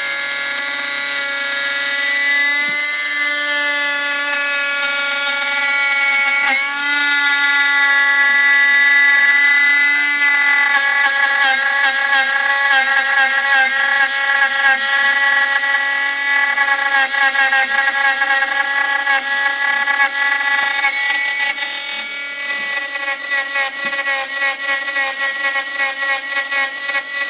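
CNC spindle motor whining steadily as its sharpened bit cuts the edge of a UHMW plastic disc round, feeding slowly in a counterclockwise circle. From about ten seconds in the whine takes on a quick regular flutter.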